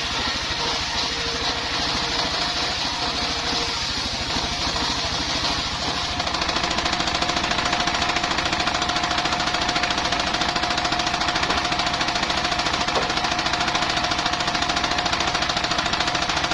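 Engine-driven circular sawmill running with a fast, even engine beat. About six seconds in it grows louder and a steady whine comes in, as the blade cuts into the bayur log.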